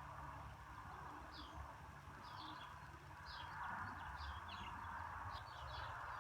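Small birds chirping in short, repeated notes over a steady low background hum.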